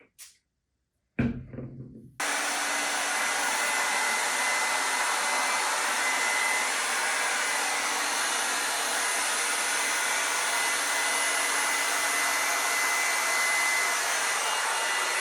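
Hot air brush (hair dryer brush) blowing on its fan: a steady rush of air with a thin high whine, starting suddenly about two seconds in and cutting off suddenly at the end.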